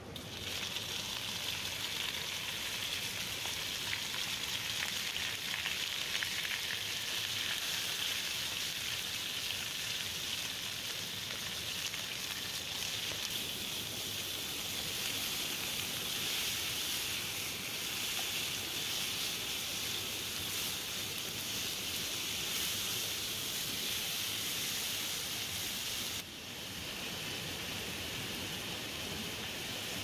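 Chunks of meat frying in hot fat in a steel sac pan over a wood fire: a steady sizzle that starts suddenly as the meat goes into the pan and drops a little about 26 seconds in.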